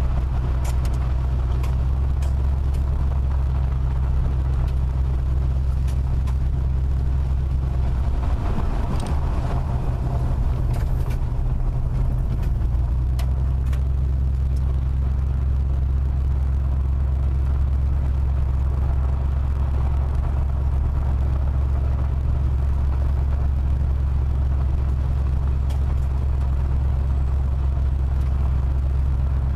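Car driving on a gravel road, heard from inside the cabin: a steady low rumble of tyres and engine, with scattered light ticks.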